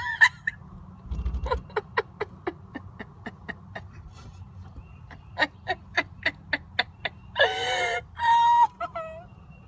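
A toddler making two runs of quick tongue clicks, about four a second, then two squealing calls near the end.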